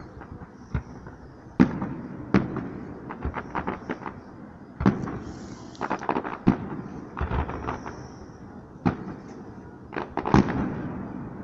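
Aerial firework shells bursting in the sky: a run of sharp bangs at irregular intervals, some coming in quick clusters, the loudest near the start, in the middle and near the end.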